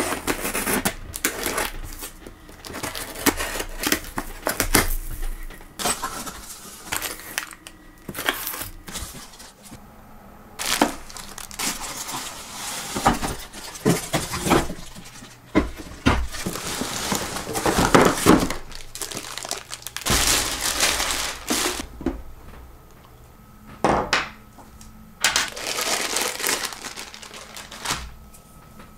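Unpacking a cardboard box: packing tape slit with a cutter, cardboard flaps and inserts scraping and rustling, and plastic wrapping crinkling, with scattered knocks as parts are handled.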